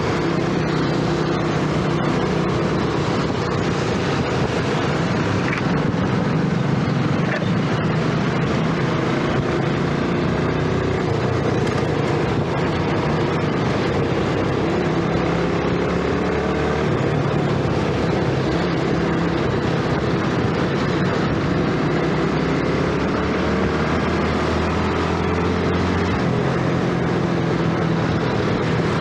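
Yamaha underbone motorcycle's single-cylinder engine running at riding speed, its pitch rising and falling gently with the throttle, under steady wind and road noise.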